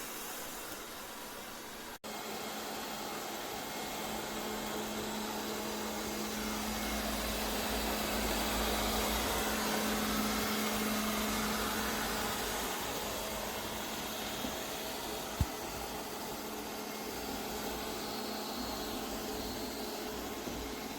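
Lefant M310 robot vacuum running, a steady whirring hum that grows louder for a few seconds in the middle as it moves closer, then eases off. A single short click about two-thirds of the way through.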